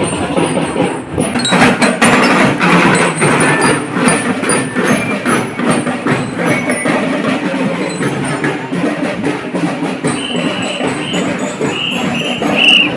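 Marching band playing, with rapid drum strokes over a steady melody.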